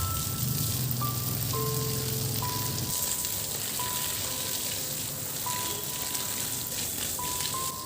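Background music with a simple melody of single held notes, over a steady hiss.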